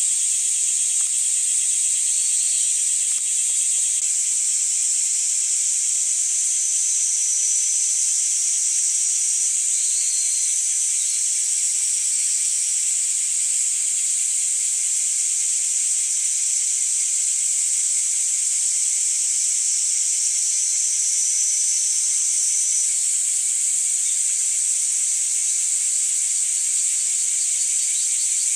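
Steady high-pitched chorus of singing insects, with a fine rapid pulsing beneath it and a few short extra calls at times.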